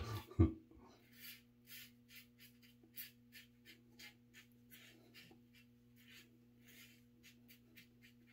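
Adjustable double-edge safety razor (a 1959 Gillette Fatboy) scraping through lathered stubble in short, quick strokes, about two or three a second. A steady low hum runs underneath.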